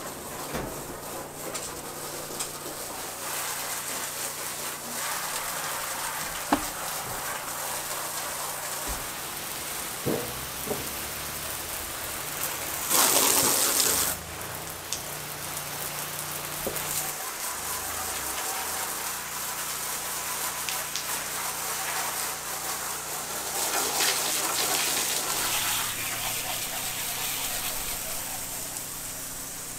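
Water spraying from a hose, rinsing sawdust off wooden siding, with a generator running steadily underneath. The spray gets much louder for about a second a little before halfway through.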